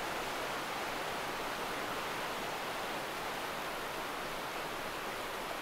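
A brook running high and fast: a steady, unbroken rush of water.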